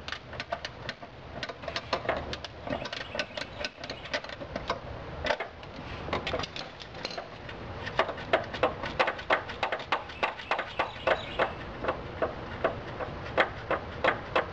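Ratchet wrench clicking as a 10 mm nut is backed off: scattered clicks at first, then a steady run of about three quick clicks a second from about halfway in.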